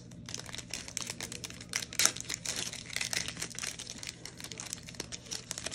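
Plastic wrapper of a trading-card pack crinkling and tearing as it is ripped open by hand, a dense crackle that is loudest about two seconds in.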